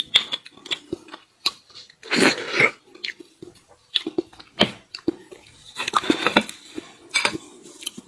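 Close-miked eating of beef bone marrow: irregular wet slurping, sucking and chewing with sharp clicks and smacks, in two denser bursts about two seconds in and again about six seconds in.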